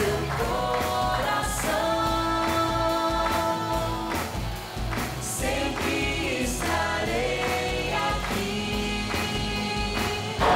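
Live pop song: a young woman and a young man singing a duet at microphones, taking turns, with acoustic guitar and band accompaniment.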